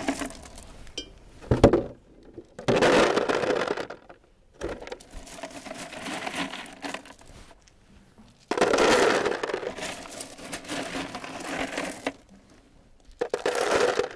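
Stones being dropped by hand into a plastic container, clattering against the plastic and against each other in about four bursts with short pauses between.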